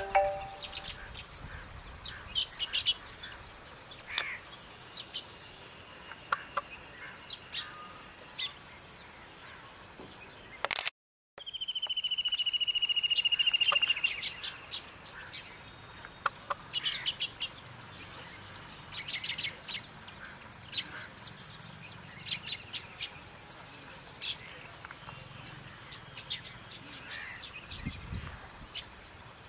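Baya weavers chirping at their nesting colony: scattered high chirps, then in the second half a fast run of chirps, several a second. About a third of the way in, the sound drops out for a split second and is followed by a loud, slightly falling whistle lasting about two seconds.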